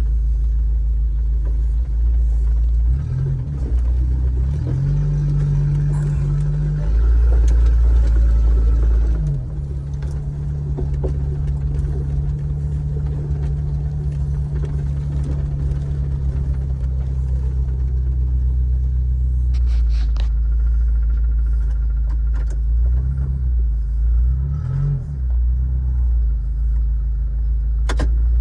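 Jeep engine running at low speed, its note rising and falling several times, with a few brief knocks and rattles in the later part.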